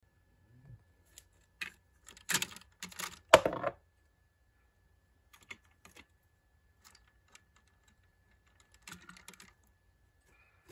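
Small plastic clicks and short scrapes of a hand-sculpted face being pulled off the front of a toy engine and another pushed into place, in a few irregular clusters, loudest about two to four seconds in.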